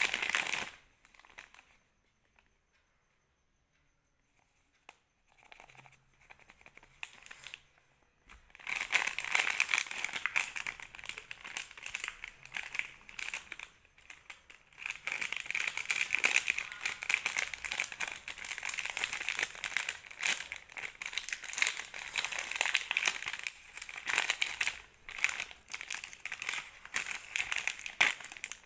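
Thin plastic candy bag of marshmallows crinkling and being torn open by hand. Near silence for several seconds just after the start, then steady crinkling with many sharp crackles.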